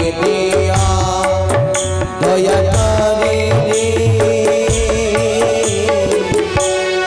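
Indian folk-theatre music: tabla playing a steady rhythm under a wavering melodic line with held drone-like tones.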